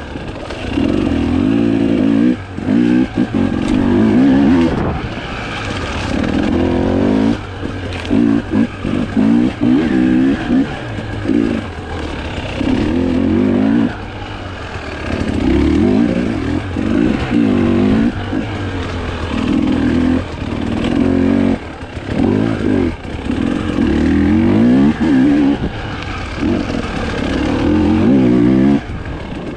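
Husqvarna TE 300i two-stroke single-cylinder enduro engine revving hard in repeated bursts, the throttle opening and closing every couple of seconds as it is ridden over rough off-road terrain, with occasional knocks.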